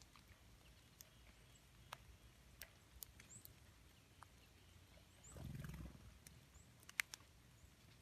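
Near-silent snowy woodland ambience: scattered faint ticks and clicks, a brief low rumble a little past the middle, and one sharper click near the end.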